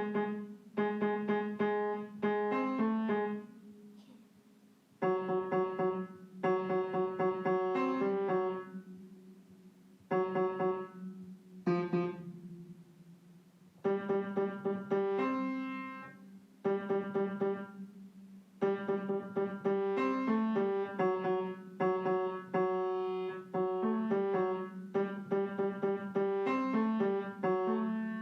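Background keyboard music in a piano-like sound: short phrases of quickly struck notes over a low held tone, broken by brief pauses.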